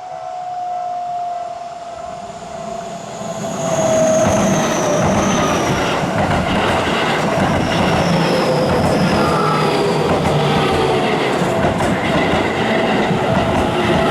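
Electric train of the Seibu Ikebukuro Line passing over the level crossing, its wheels clattering over the rail joints. The noise swells sharply about three and a half seconds in, then holds loud, with a whine that slowly falls in pitch.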